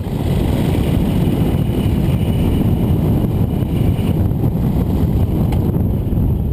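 Steady, loud rush of wind across the microphone during low paramotor flight, mostly deep in pitch, easing slightly near the end.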